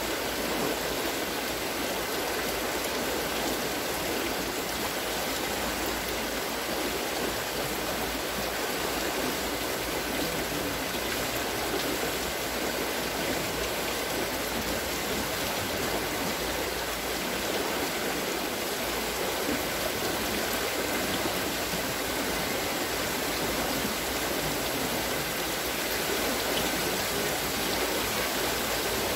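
Steady splashing and trickling of water from a turning wooden water-scooping wheel, its buckets spilling water as they come over the top.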